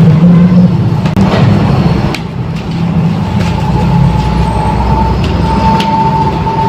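A steady low engine-like rumble, with a few light clicks of a camera box being handled and opened. A steady high tone joins about three and a half seconds in.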